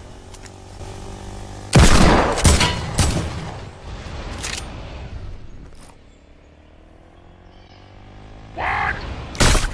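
Gunshot-like sound effects: a few sharp bangs, the loudest about two seconds in, a couple more around three and four and a half seconds, and another near the end.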